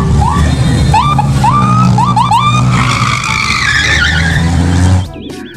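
A car engine running steadily under a string of short rising squeals. The sound cuts off about five seconds in.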